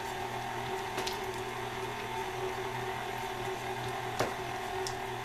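KitchenAid stand mixer running steadily, its flat beater creaming butter and sugar in a stainless steel bowl: an even motor hum with a faint click about a second in and a sharper click about four seconds in.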